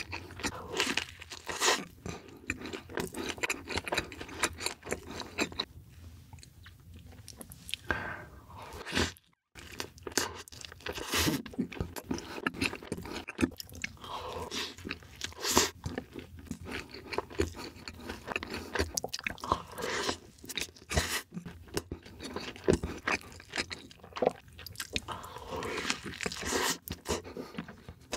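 Close-miked eating: a person biting into and chewing soft cheeseburgers with melted cheese, in a dense run of irregular wet smacks and clicks. The sound drops out briefly about nine seconds in.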